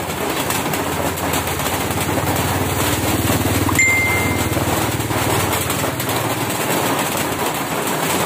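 Heavy rain pelting a roof overhead in a loud, steady, dense patter. A low drone swells through the middle, and a short high beep sounds about four seconds in.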